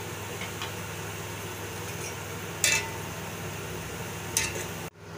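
A metal skimmer clinks twice against a steel cooking pot, about two and a half and four and a half seconds in, over a steady low hum. The sound cuts off abruptly near the end.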